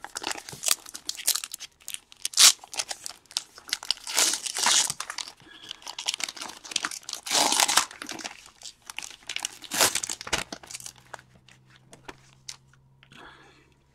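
Trading-card pack wrapper being torn open and crinkled: a run of crackling rustles and tears for about eleven seconds, then it falls quiet apart from a faint low hum.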